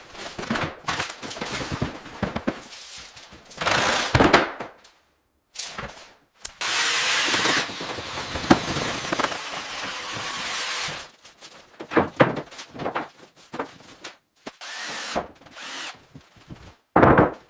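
Demolition and construction work sounds cut together: knocks and bangs, and a stretch of steady power-tool noise from about six to eleven seconds in, with abrupt cuts between short clips.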